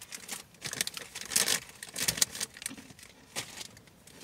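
Plastic snack wrappers rustling and crinkling in several irregular bursts as hands rummage through a cardboard snack box.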